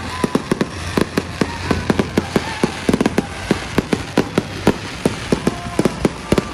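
Aerial fireworks going off in a rapid barrage: a dense run of sharp bangs and pops, several a second, over a continuous crackling hiss.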